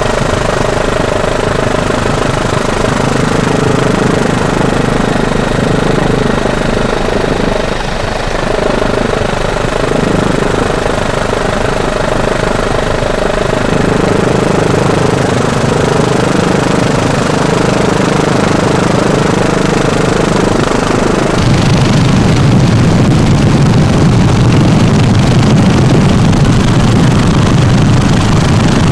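An engine running steadily at a constant speed, with several held tones. About three quarters of the way through, the sound changes to a louder, deeper hum.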